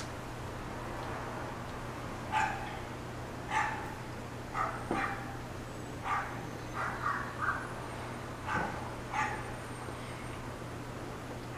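A dog barking off-camera: about ten short barks spread over several seconds, some in quick pairs, over a steady low hum.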